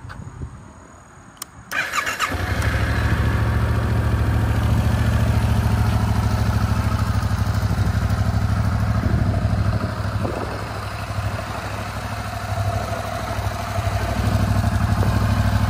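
2024 Yamaha MT-07's 689 cc parallel-twin engine cranked by the electric starter, catching about two seconds in, then idling steadily with an even low beat. The idle sounds louder again near the end.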